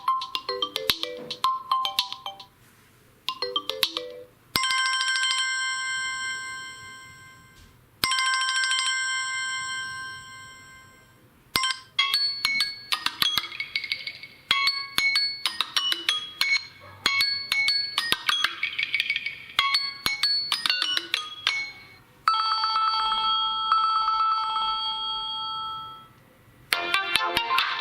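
Samsung Galaxy M01 stock ringtones playing one after another, each for a few seconds. A quick run of notes gives way to a bell-like chime chord struck twice and left to ring out, then a fast rippling melody, then a held, pulsing chord that fades, and a new tune starts near the end.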